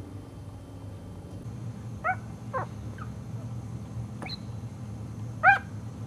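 Very young puppies squeaking and whimpering: about five short high squeaks, each rising and falling in pitch, the loudest near the end, over a low steady hum.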